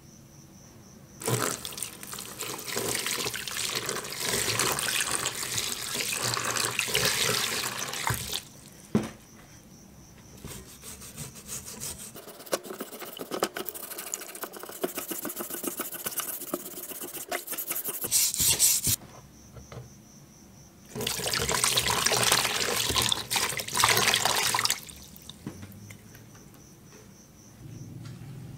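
Liquid sloshing and splashing in a plastic tub as a rusty axe head is scrubbed under the surface. It comes in three long bouts with short pauses between them.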